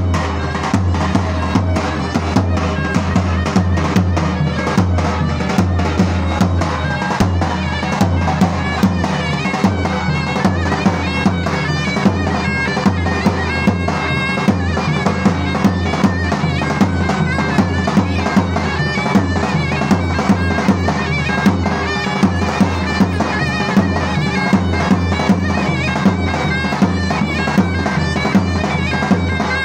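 Live zurna playing a folk dance tune, loud and reedy, over a steady davul drum beat.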